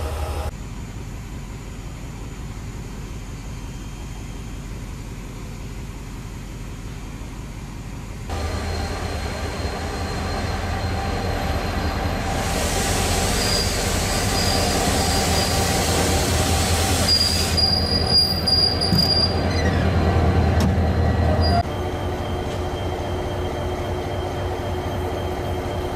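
Diesel locomotive of a container freight train running at low speed, its engine a steady low drone. About halfway through, a hiss rises and a high-pitched squeal from the running gear comes and goes for several seconds.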